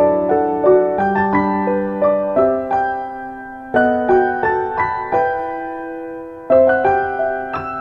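Background piano music: slow, gentle single notes and chords, each struck and left to fade.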